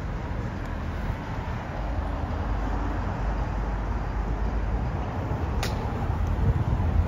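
City street traffic noise, a steady low rumble of passing cars, with a single sharp click about five and a half seconds in.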